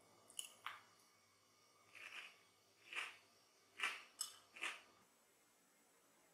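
Faint sounds of someone eating Froot Loops cereal: a spoon tapping the bowl and crunchy mouthfuls being chewed. There are about seven short, separate sounds in the first five seconds, then quiet room tone.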